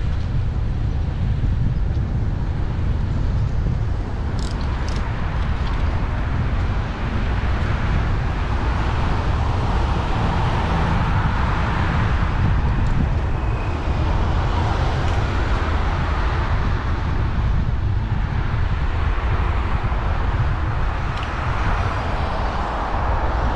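Wind noise on a GoPro microphone while cycling, over steady road and traffic noise that swells a couple of times. Two brief sharp clicks come about four and a half seconds in.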